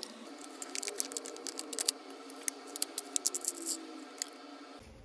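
Foil lid being peeled back from a plastic two-compartment yogurt cup, and the cup being gripped and bent. It makes a run of sharp crackles and clicks that stops about a second before the end.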